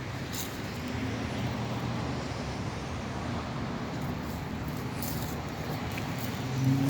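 Steady outdoor background noise with a low rumble from road traffic, with faint low murmuring and a few small clicks.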